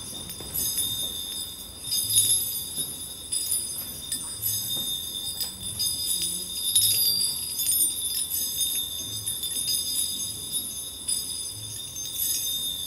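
Small bells jingling and ringing in shaken clusters, with high tinkling tones that swell and fade every second or two. Soft low thumps recur underneath.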